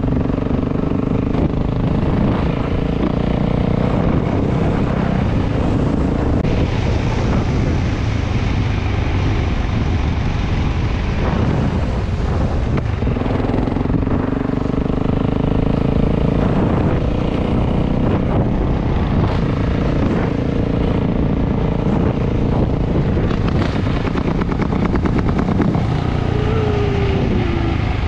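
Motorcycle engine running while being ridden, its pitch shifting up and down with the throttle over a steady rushing noise, with a short falling note near the end.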